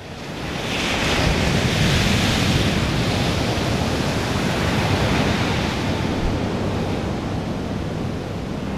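Heavy surf breaking steadily on a black sand and pebble beach, with wind; it fades in over the first second.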